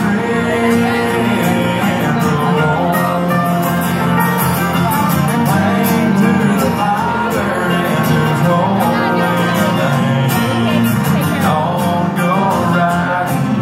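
A live country band playing, with acoustic guitar, fiddle and electric guitar behind a sung vocal.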